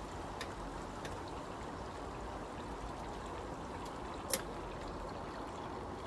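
Steady background hiss with a few light clicks and one sharp click about four seconds in, as a kids' bike is turned and re-clamped in a repair workstand.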